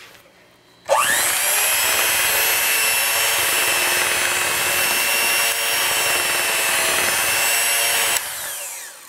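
Electric hand mixer switched on about a second in, its motor whining steadily as the beaters cut butter into a flour and sugar mixture; it is switched off near the end and the whine falls as the motor spins down.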